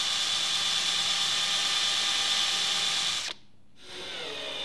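Cordless drill running steadily at speed with a thin twist bit, drilling a hole through a thin metal strip into the wooden hive box. It stops about three seconds in, then runs again, more quietly, near the end.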